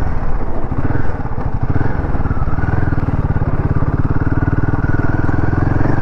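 Royal Enfield Himalayan 450's 452 cc single-cylinder engine running with a steady, even pulse as the motorcycle rides along a dirt trail at a moderate pace.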